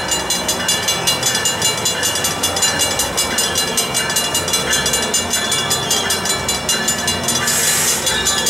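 Railroad crossing bells ringing in a fast, even rhythm as a passenger train approaches the crossing. A short burst of hissing comes near the end.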